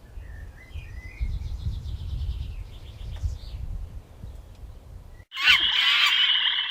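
Bird chirps and a rapid ticking trill over a low rumble. About five seconds in there is a sudden switch to a loud, dense chorus of croaking frogs, the loudest part.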